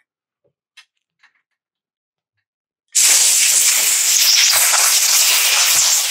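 Compressed-air blow gun on a shop air hose blasting dirt off a chainsaw part, starting abruptly about three seconds in as a loud, steady hiss. Before it come only a few faint clicks.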